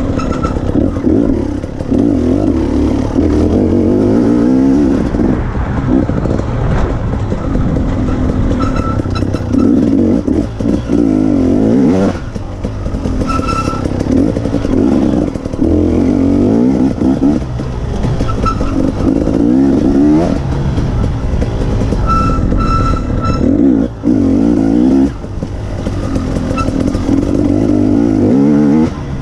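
Dirt bike engine revving up and dropping back again and again as the rider accelerates out of corners and shuts off into the next ones, with a brief let-off twice along the way.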